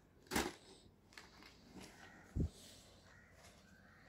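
Folded cotton sarees being handled and lifted off a sheet-covered table: a brief rustle about half a second in, a few small ticks, and a soft low thump a little after two seconds, all faint.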